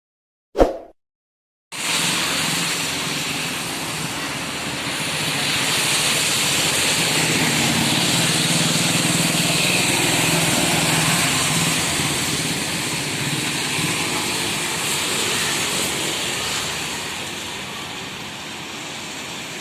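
Steady noise of motor vehicles running, slowly swelling and easing, after a single sharp click near the start.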